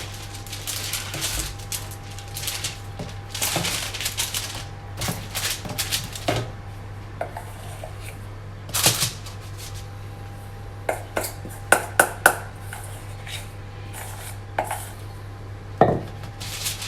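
Kitchen utensil scraping and tapping against a bowl and baking tray as thick chocolate sponge batter is spread onto baking paper: irregular clinks and scrapes over a steady low hum.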